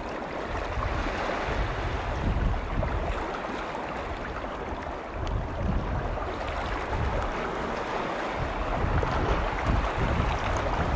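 Waves on Lake Vänern washing against the shore in a steady, uneven wash, with wind buffeting the microphone in low gusts.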